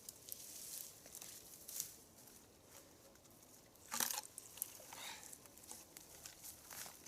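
Rustling and crackling of dry leaf litter and twigs underfoot, in scattered short bursts, with one louder sharp crackle about four seconds in.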